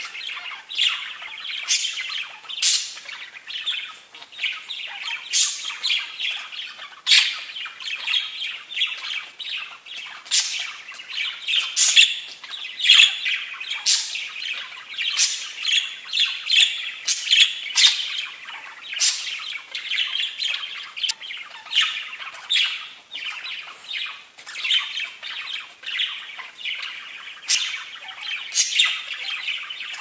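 Several budgerigars (pet parakeets) chattering without a break: a dense warbling stream of chatter, with short, sharp high chirps and squawks breaking over it one or two times a second.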